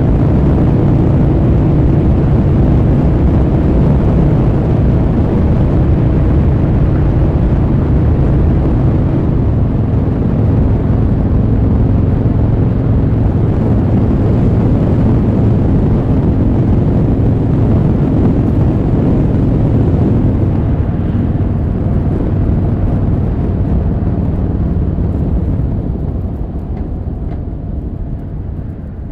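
Victory Hammer's V-twin engine running steadily at cruising speed, with wind and road noise, picked up by a recorder in the rider's pocket. In the last few seconds the engine note and the wind noise drop as the bike slows.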